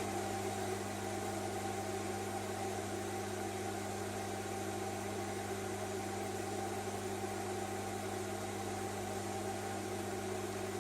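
Steady electrical hum with a constant low tone and a faint hiss, unchanging throughout.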